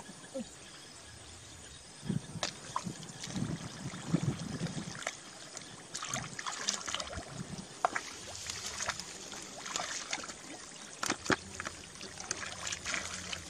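Hands digging and groping through wet paddy mud and shallow water, making uneven squelching and sloshing with scattered sharp wet clicks.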